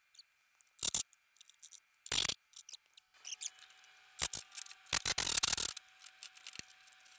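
A few short metallic clicks and clanks of suspension hardware being handled, with a longer clatter about five seconds in.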